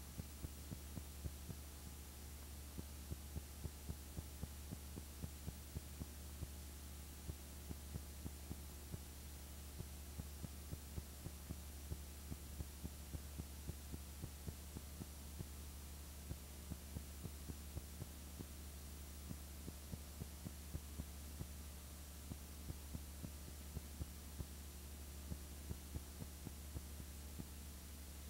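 Steady low hum with faint clicks several times a second, unevenly spaced; no other sound.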